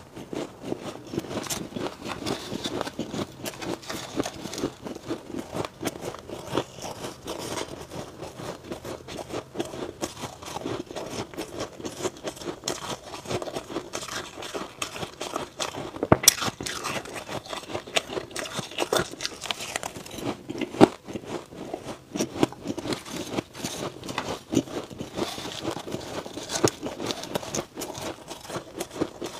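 Close-miked crunching of powdery frost ice as it is bitten and chewed: a dense, even run of fine crackling crunches, with a few sharper cracks about halfway through and again about two-thirds through.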